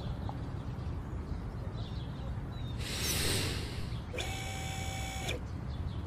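A JCB 3DX backhoe loader runs faintly with a low rumble while its boom is raised. There is a short whoosh about three seconds in, and a steady whine lasting about a second near the end.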